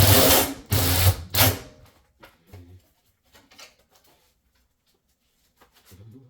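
Handheld power drill running in three short bursts, one after another, in the first second and a half, followed by faint clicks of parts and tools being handled.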